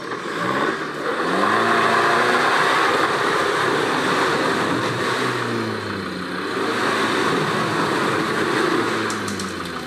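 Off-road 4x4's engine revving under load, its pitch climbing over the first couple of seconds, holding, dropping back about midway and then climbing again.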